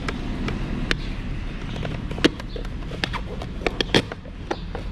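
Sharp plastic clicks and snaps as the mirror glass of a Mazda CX-5 side mirror is pried loose from its housing by hand. The clicks come scattered, with the loudest about two seconds in and a quick cluster of snaps near four seconds.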